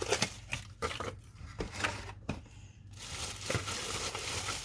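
Packaging being handled as items are taken out of a box: irregular crinkling and rustling with small clicks, easing off briefly about two seconds in, then a steadier rustle.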